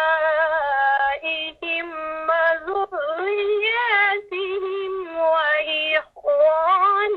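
Melodic Quran recitation in Arabic by a single voice: long held notes that glide and ornament, broken by brief pauses for breath.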